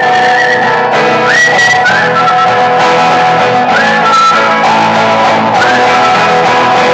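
Live music filmed in a large hall: a dense, steady accompaniment under a high melody line that slides up into each note.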